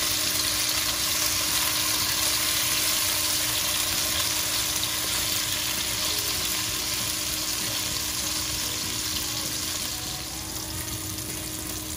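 Rohu fish steaks sizzling steadily as they shallow-fry in oil in a nonstick frying pan, while they are turned over with a wooden spatula. The sizzle eases a little near the end.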